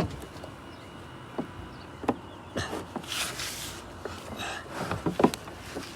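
A few scattered clicks and knocks with a short stretch of rustling, the sound of equipment being handled.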